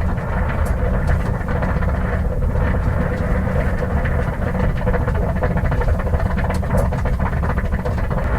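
1950 Ford flathead straight-six engine idling steadily as the car overheats, with a few light ticks.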